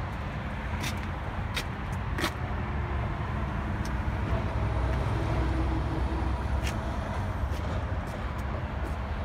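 Heavy Peterbilt truck's diesel engine idling with a steady low rumble, with a few sharp ticks scattered through it.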